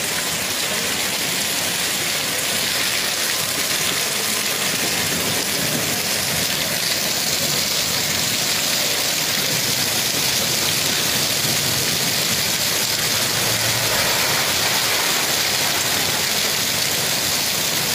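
Heavy hailstorm: a steady, dense hiss of hail and rain falling on the road and cars, with a car engine idling low underneath.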